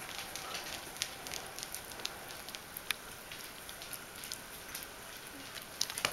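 Bichon Frisé puppies mouthing and licking each other, making soft scattered clicks and smacks over a steady hiss. Near the end there is a brief cluster of louder clicks.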